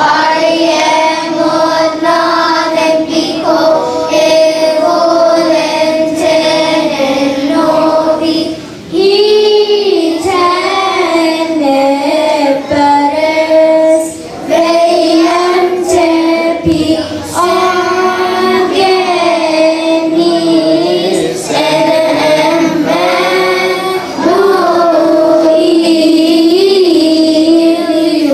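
A children's choir singing a church song together, holding long notes in phrases with short breaks between them.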